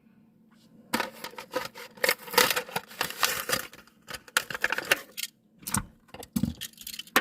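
A Hot Wheels blister pack being opened: about four seconds of dense crackling of plastic and card, then a few separate knocks and clicks.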